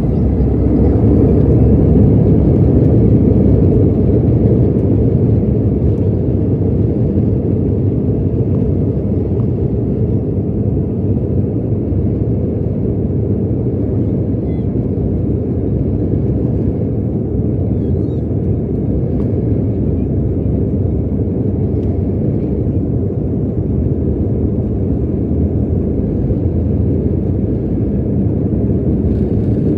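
Jet airliner taking off: a steady low rumble of engines and rushing air, slightly louder in the first few seconds.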